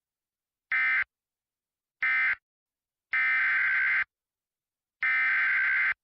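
Emergency Alert System SAME digital data bursts, harsh buzzy warbles about a second apart: two short end-of-message bursts, marking the close of the previous warning, then two longer header bursts that open the next alert.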